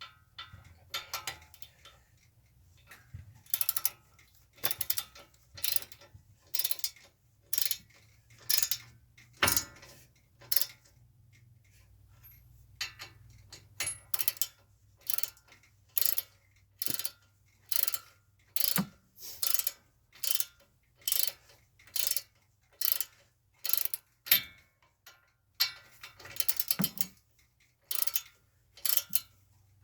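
A hand ratchet wrench worked back and forth in short strokes, its pawl clicking in a quick burst about once a second.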